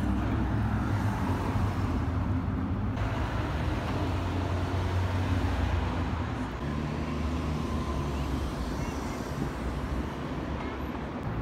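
City street traffic noise: a steady low rumble of vehicle engines, with a bus running on the street.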